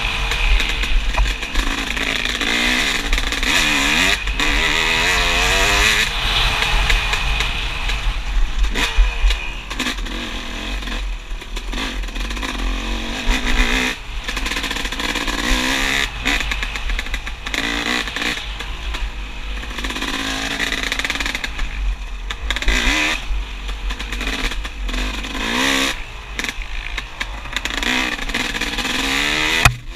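Dirt bike engine ridden on the trail, its pitch rising and falling again and again as the throttle is opened and closed, heard from the rider's helmet camera with a low wind rumble on the microphone.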